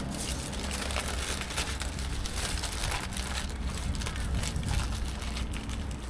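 Aluminium foil burrito wrapper crinkling in short crackles as it is handled and eaten from, over a steady low rumble.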